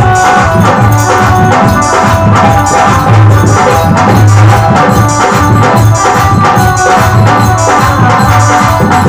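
Loud, amplified instrumental passage of a bhajan. A dholak drum beats a steady rhythm with heavy bass hits, under held melody notes from a harmonium and an electronic keyboard.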